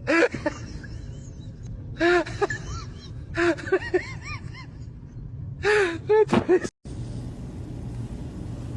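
Short, high-pitched cries from a pet, each rising and falling in pitch, coming in clusters of one to four. After a sudden cut near the end, a steady low rumble.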